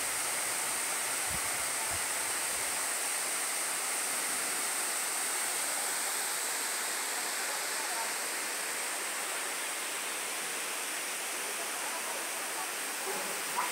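Steady rushing of the Cascatinha Taunay waterfall, a continuous hiss of falling water.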